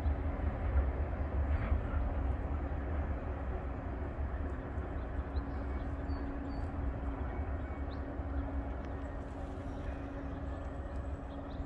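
Low rumble of a distant Norfolk Southern oil train moving away down the tracks, slowly fading, with a steady hum throughout.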